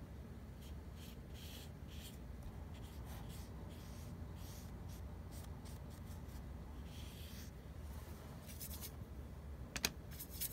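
Scratchy strokes of a drawing tool on paper, coming in short irregular spurts over a low steady hum, with one sharp click near the end.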